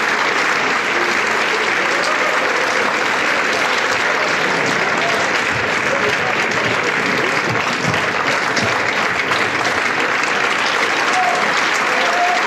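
Theatre audience applauding steadily for the cast at the curtain call, with a few voices calling out near the end.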